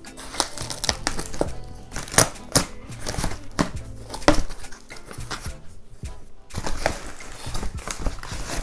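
Foam packing wrap crinkling in quick, irregular bursts as it is handled and pulled off a motorcycle fairing panel, over background music.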